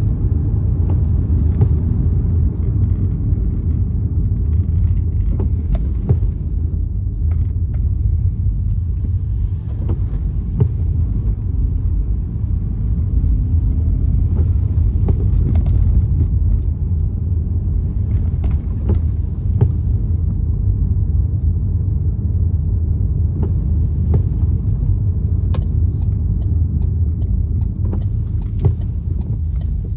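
Car cabin noise while driving on a wet road: a steady low rumble of engine and tyres, with scattered short clicks and knocks.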